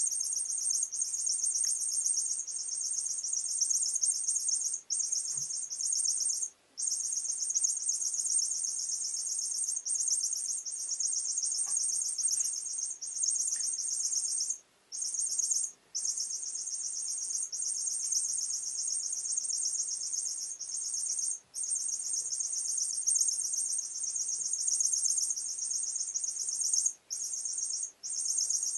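Squeaking cat teaser wand toy giving a high-pitched chirping squeak almost without pause, broken by short gaps every few seconds.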